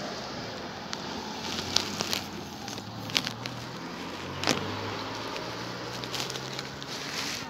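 A vehicle engine idling with a steady low hum, with a few sharp clicks over it, the clearest about halfway through.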